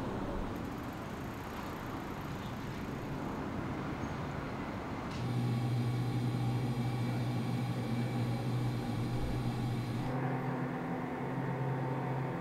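Background ambience with no clear event. For the first five seconds there is a low rumbling hiss. From about five seconds in, a steady low hum takes over, with a faint high whine above it, and its tone changes slightly about ten seconds in.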